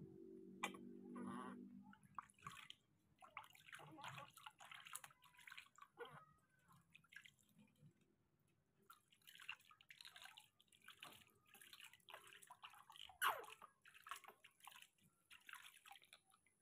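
Faint splashing and dripping of water in a plastic basin as a baby monkey is washed by hand, in many small irregular splashes with one sharper splash about two-thirds of the way through. A short low hum sounds at the start.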